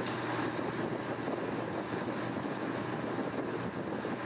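Airfield crash rescue fire truck's engine running steadily with a low hum, mixed with wind on the microphone.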